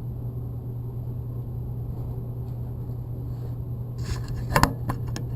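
Portable variable-speed band saw running steadily at its slowest speed with no load, a low even hum, then a few sharp clicks and knocks from about four seconds in as the cut stock is handled.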